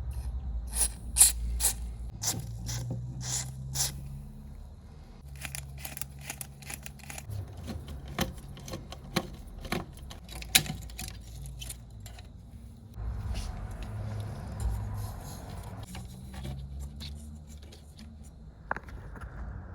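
Hand work on metal: many sharp clicks and knocks with scraping, over a low steady hum, with a spell of rougher scraping noise about two-thirds of the way through.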